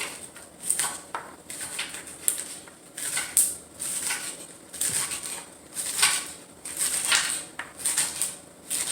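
Knife chopping vegetables on a cutting board: short sharp knocks in an uneven rhythm, about two a second.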